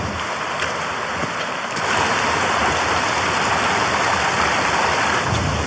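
Mountain stream rushing over rocks and a small cascade into a pool: a steady rush of water, a little louder from about two seconds in.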